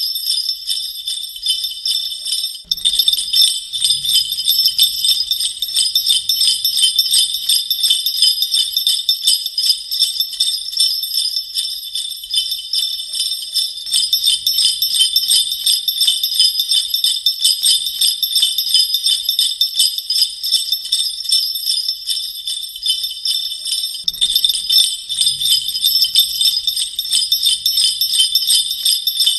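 Sleigh bells jingling continuously, shaken in quick, even strokes, with a brief drop about three seconds in.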